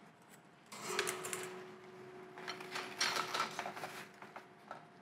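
Handling noise from a DRO linear scale in its aluminium housing being picked up and positioned against a steel bar: scattered small clicks, light knocks and rustling, busiest about a second in and again around three seconds, with a faint steady hum underneath.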